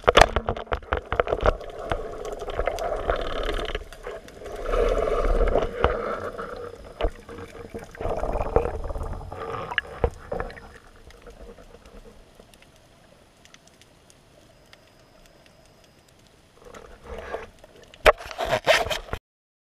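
Underwater: a sharp shot from an oleopneumatic speargun, followed by several seconds of knocking, scraping and bubbling while the gear is handled in the water. It quietens, then near the end comes a flurry of splashing and knocks as it breaks the surface, cutting off suddenly.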